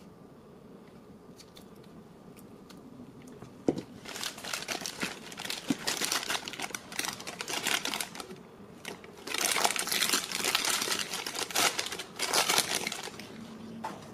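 Clear plastic bag crinkling as it is handled and opened to take out a small plastic animal figurine, in two spells of a few seconds each. A sharp click comes just before the first spell.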